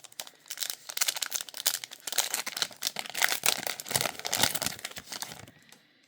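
A trading card pack's wrapper being torn open and crumpled, a dense crinkling that dies away near the end.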